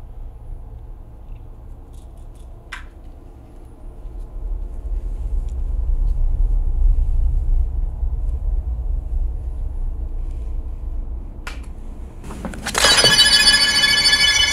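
Low, rumbling ambient drone from a horror film score, swelling louder about four seconds in, with a couple of faint clicks. Near the end a rising whoosh leads into a loud, bright sustained musical stinger of many ringing tones.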